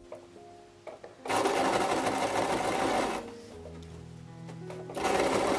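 Domestic electric sewing machine stitching binding tape along the edges of fabric, in two runs: one of about two seconds starting just over a second in, and another starting near the end. Soft background music with held piano-like notes fills the gap between them.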